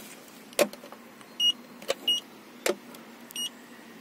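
Handheld paint thickness gauge taking readings on a car's painted bodywork to check for repainting. Its probe clicks sharply against the metal three times, loudest about half a second in, and the gauge gives three short, high beeps as it registers readings.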